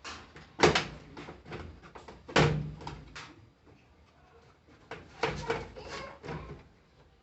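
Knocks, clunks and clatters of washing machine panels and parts being handled during disassembly: two sharp knocks, then a quick cluster of several more near the end.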